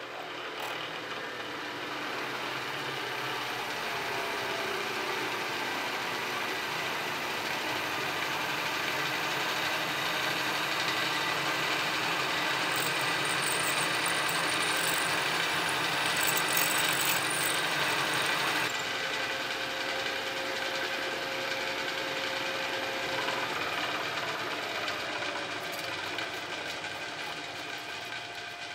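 Milling machine running with an end mill cutting into a steel workpiece: a steady machining noise with a shrill cutting edge. About two-thirds of the way through the cutting noise drops away and the machine keeps running.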